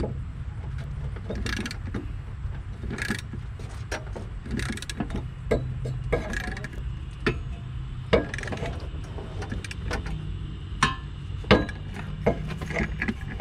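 Irregular metallic clicks and clanks of a hand wrench working the top nut of a worn rear shock absorber, over a steady low hum.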